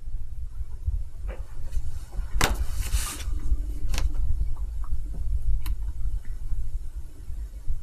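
Low, steady rumble of room tone, with a few small clicks and knocks and a short rustle about two and a half seconds in.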